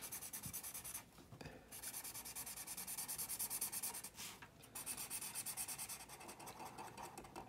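Felt-tip marker scratching back and forth on paper in quick repeated strokes while colouring in a shape. The sound is faint and stops briefly twice.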